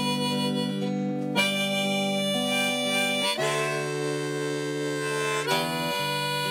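Harmonica in a neck holder playing a slow melody of long held notes, each lasting a second or two, over strummed acoustic guitar chords.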